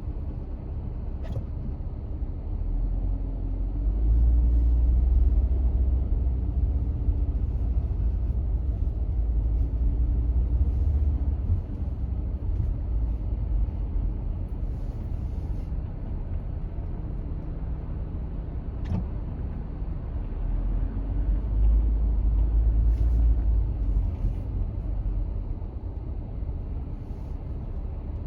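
A car driving: a steady low rumble of engine and tyres on the road that swells louder twice, with a few faint, brief clicks.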